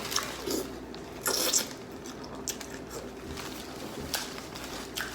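Eating and food-handling noises from a seafood boil: scattered soft clicks, with a brief rustle a little over a second in.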